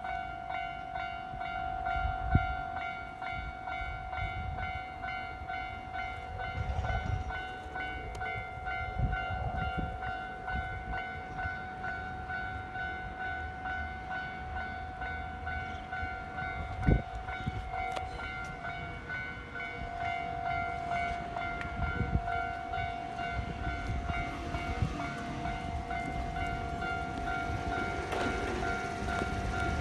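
Japanese railway level-crossing warning alarm sounding continuously in a steady high tone, over the low rumble of a Nankai train on the line with a few sharp wheel thumps. The rumble grows louder near the end.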